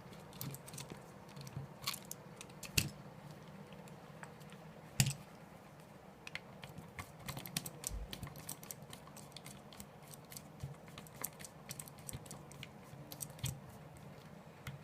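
Small irregular clicks and ticks of a screwdriver and handling as the two base-plate screws are unscrewed from an airsoft M4 AEG's pistol grip, with a couple of sharper knocks about 3 and 5 seconds in, over a faint steady hum.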